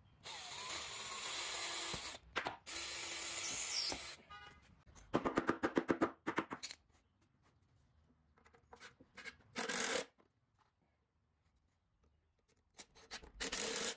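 Ryobi cordless drill and impact driver pre-drilling and driving deck screws into wooden boards: several short bursts of whirring, with a fast run of sharp knocks about five seconds in.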